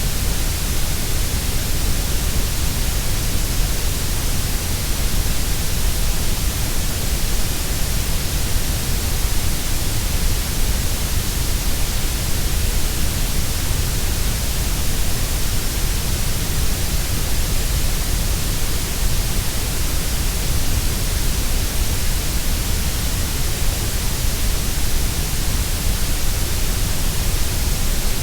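Steady, unbroken grey noise: an even hiss with a deep rumble underneath, fuller in the low bass and the high treble than in the middle.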